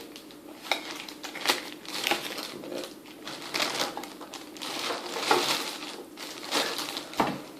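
Packaging crinkling and rustling in irregular bursts as items are handled and unwrapped, with a few sharp clicks.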